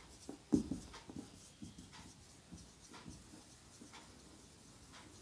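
Marker pen writing on a whiteboard: short, faint, irregular strokes as letters are formed, with one louder stroke about half a second in.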